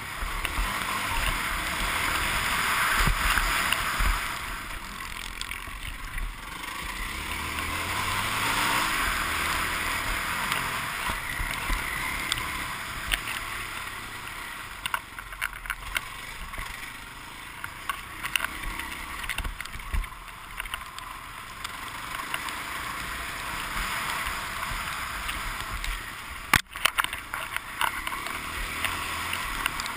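Dirt bike engine being ridden hard in a motocross heat, its revs rising and falling every few seconds as the rider accelerates and backs off, with wind noise on a helmet-mounted camera. A single sharp knock comes near the end.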